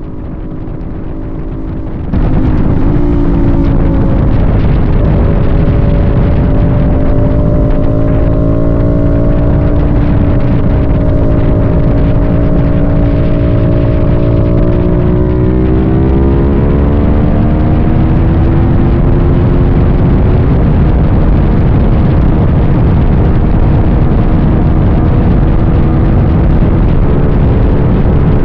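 A vehicle engine running under way with a heavy rush of wind noise, its note holding steady and then rising in pitch about halfway through as it accelerates. The sound fades in over the first two seconds.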